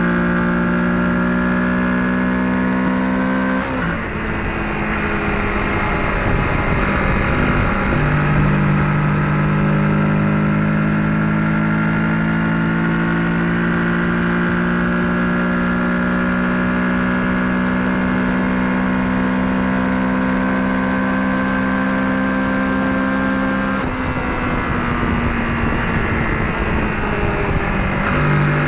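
Kawasaki Ninja 650's parallel-twin engine pulling on the highway, heard from onboard, its note climbing slowly under load over wind rush. The pitch drops sharply about four seconds in, as at an upshift, and falls away again near the end.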